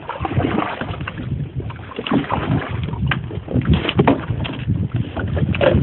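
Kayak paddle strokes and choppy wind-driven water splashing irregularly against the kayak, with wind buffeting the microphone.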